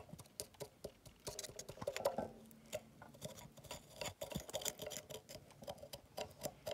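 Plastic fork scraping and clicking against the inside of a small terracotta pot while mashing wet potting soil: a quick, irregular run of light ticks and scrapes.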